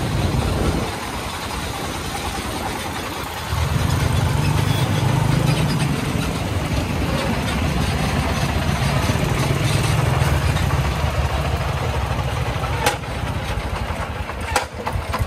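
Công nông farm truck's single-cylinder diesel engine chugging; about three and a half seconds in it gets louder and deeper and then runs on steadily. Two sharp clicks near the end.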